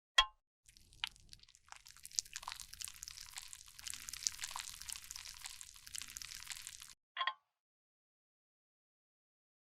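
Cosmetic product being worked close to the microphone: a sharp click, then about six seconds of fine crackling and scratching, and one brief scrape.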